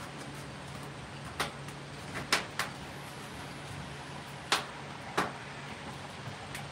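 Wood fire in a rotisserie smoker crackling, with about five sharp pops scattered irregularly over a steady low hum.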